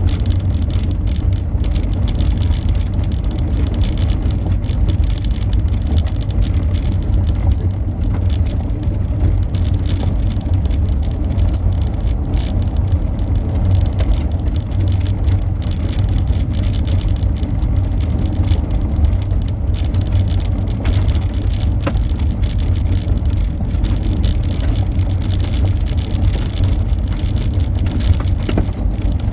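Car driving on a gravel road, heard from inside the cabin: a steady low rumble of engine and tyres on gravel, with a couple of faint ticks, likely from loose stones.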